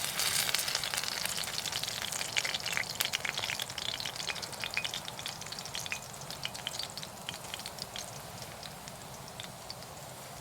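Food frying in hot oil in a pan, sizzling with many small pops that start suddenly, then gradually thin out and quieten.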